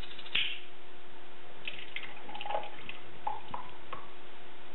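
Steady hum and hiss, with a sharp click about half a second in and a few faint knocks and rustles of a milk carton being handled.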